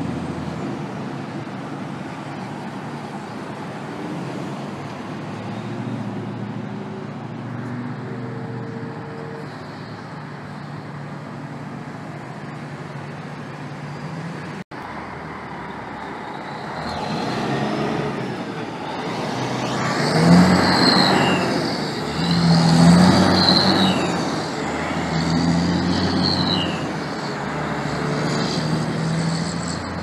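Caterpillar 3406 inline-six turbo diesel in a Peterbilt 379 semi, heard over steady road traffic. About halfway through it pulls away from a stop under load, rising in several surges as it works up through the gears. A turbocharger whistle rises and falls over the engine noise.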